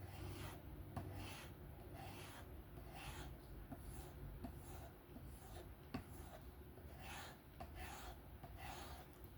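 A 154CM steel folding knife blade being stroked along a strop charged with 3-micron emulsion: a faint, soft swishing rub repeated steadily, a little more than once a second, as the edge is refined after the stones.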